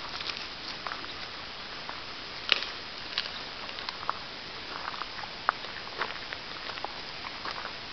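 Gravel crunching and clicking under two Bernese Mountain Dogs wrestling on it, one rolling on its back. Irregular small clicks of stones, with a sharper click about two and a half seconds in.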